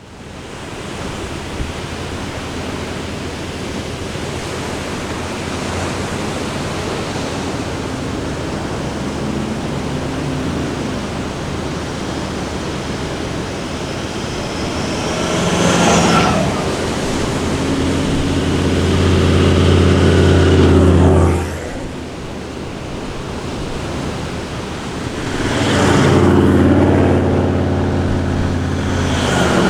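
Four-wheel-drive engine running steadily over a wash of surf or wind noise. It grows louder twice, about halfway through and again near the end, and drops away abruptly between the two.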